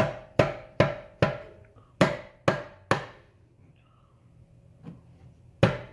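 Rubber mallet tapping a bolt through a Tesla Model S rear upper camber arm and bushing. The light, ringing taps come about two and a half a second: four, a short break, then three more. After a pause there is one faint tap and one firmer one near the end.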